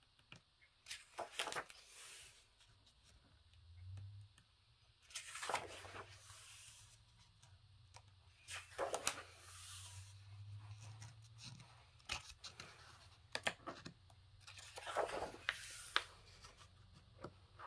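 Pages of a paperback coloring book being turned one after another, each turn a brief papery swish or rustle, repeated about every second or two.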